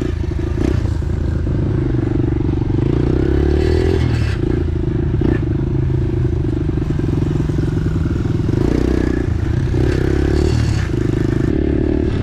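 Pit bike engine running as it is ridden, the revs rising and falling several times as the throttle is worked. Scraping and clattering from the bike over rough ground come through with it.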